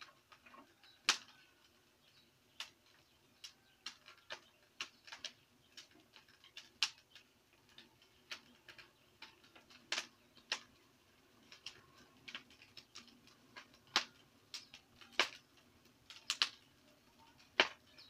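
Small wood fire crackling under a stack of wooden beehive boxes, burning to scorch the hive: irregular sharp pops, about one or two a second.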